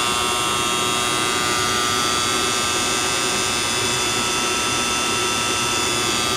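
Powered-up Romi-Bridgeport EZ-Path CNC lathe running, a steady machine hum and hiss with several high, even whining tones.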